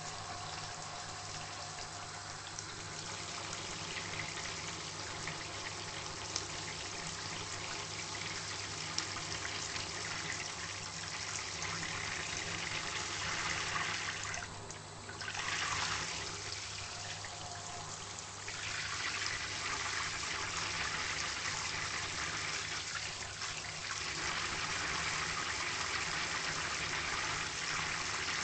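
Steady rush of running water that briefly drops away about halfway through, over a faint low hum.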